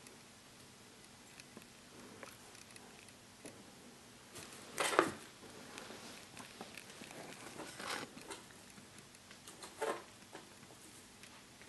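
A few brief rustles and taps of a cardboard box and its contents being handled, the loudest about five seconds in, with smaller ones near eight and ten seconds; otherwise quiet.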